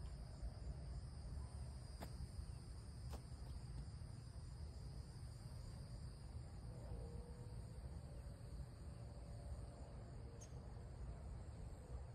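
Faint steady trilling of insects, over a low rumble, with two faint clicks a couple of seconds in.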